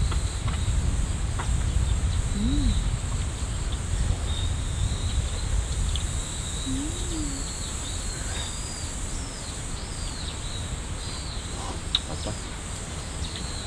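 Outdoor ambience: small birds chirping in short high calls, mostly in the second half, over a steady high hum and a low rumble. A couple of short, low calls rise and fall in pitch.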